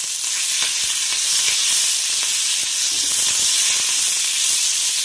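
Freshly washed thoothuvalai leaves sizzling in hot sesame oil in a kadai, a steady high hiss, with light scraping taps of a wooden spatula stirring them.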